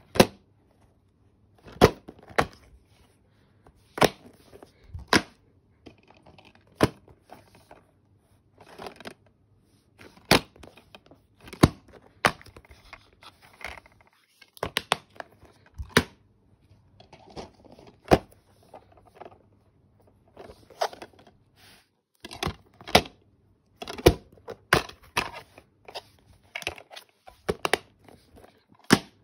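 Plastic DVD and Blu-ray cases being handled: many sharp clicks and snaps as the cases are opened, shut and moved, some in quick runs, with soft rustling of the plastic between.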